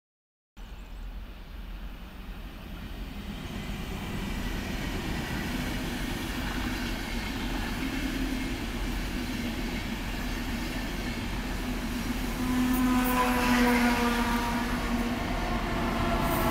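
InterCity train rolling past on the rails, a steady rumble that slowly grows louder. From about twelve seconds in, a whine of several tones joins it as the DB class 101 electric locomotive at the end of the train comes by.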